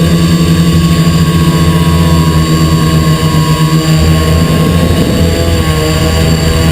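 XP2 quadcopter's electric motors and propellers running with a loud, steady multi-tone whine and hum; the pitch shifts slightly about five seconds in as the motor speeds change.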